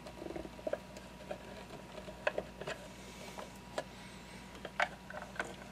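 Faint scattered clicks and taps of wires and small parts being handled inside a project box during electrical wiring, with a few sharper clicks in the second half.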